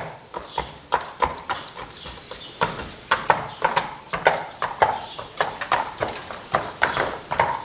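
Horse's hooves striking concrete in a steady clip-clop as it is ridden, about three hoofbeats a second, a little fainter for a moment early on.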